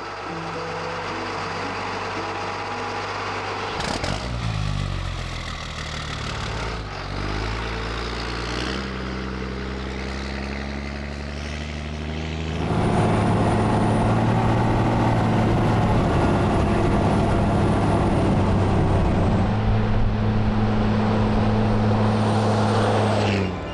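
Cat 3126 inline-six turbo-diesel engine running under load as the truck drives, its pitch climbing and shifting through the first half. About halfway in it gets louder and steadier, with a high whine over it.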